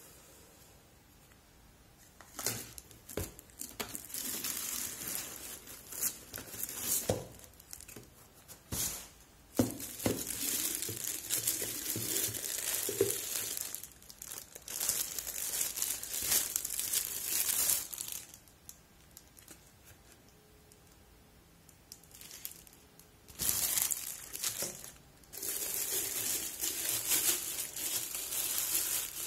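Clear plastic packaging bags crinkling and rustling in stretches of several seconds as the wrapped plastic parts of a facial steamer are handled. There is a quieter pause of a few seconds after the middle.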